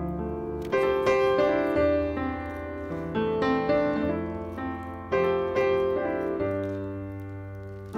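Background piano music: struck notes in a melody over held low notes.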